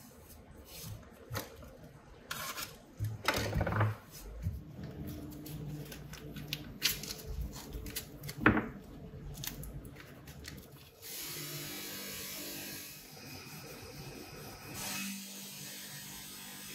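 Masking tape being ripped off the roll and pressed and rubbed onto a metal iron body, in irregular rips and scrapes with two sharp tearing rips. Later a steady hiss takes over.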